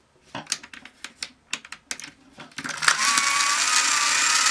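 A series of sharp clicks, then about three seconds in the Armatron toy robot's single electric motor starts up and drives its plastic gear train with a steady whirring rattle and a whine that slowly rises in pitch: the dead toy has begun working again.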